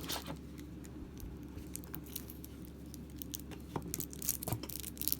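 Plastic wrapping on a game-card deck crinkling and tearing as it is pulled open, a run of small crackles that gets busier about three and a half seconds in.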